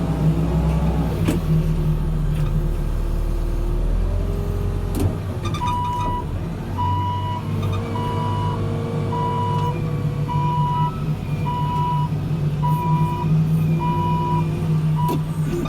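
New Holland backhoe loader's diesel engine running steadily. About six seconds in its reversing alarm starts beeping as the machine backs up: about ten evenly spaced beeps, one a little over a second apart.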